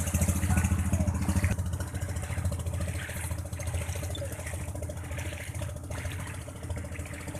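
A boat's engine running steadily under way: a low drone with a hiss of wind and water over it, a little louder in the first second and a half.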